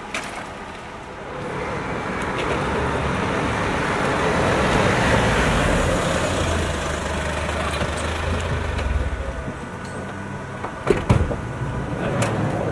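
A police van drives slowly up close past the microphone, its engine and tyres on the paving rising to a peak and then fading as it comes to a stop. A few sharp knocks and clicks follow near the end.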